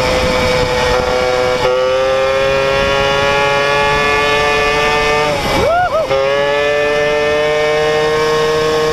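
A Peugeot two-stroke engine with a 70cc Metrakit cylinder kit running hard at high, steady revs while riding. About five and a half seconds in, the pitch breaks briefly, swooping down and back up before settling at a steady high pitch again.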